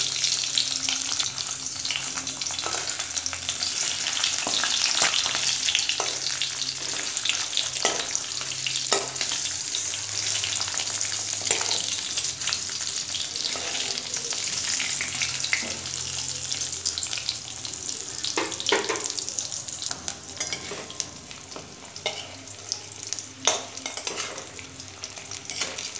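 Halved hard-boiled eggs, coated in salt and turmeric, sizzling as they shallow-fry in hot mustard oil in a metal kadai. A metal spatula turning them gives occasional scrapes and knocks against the pan. The sizzle eases somewhat in the last few seconds.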